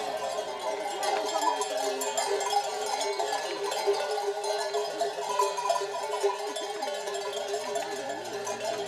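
Many bells worn by a flock of sheep on the move, ringing and jangling together in a steady, dense clatter, with some sheep bleating among them.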